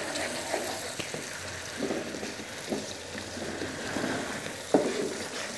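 Tomato-and-spice masala sizzling in a hot wok as it is stirred and fried down (bhuna), with scraping and a few light knocks of the spoon against the pan, one louder near the end.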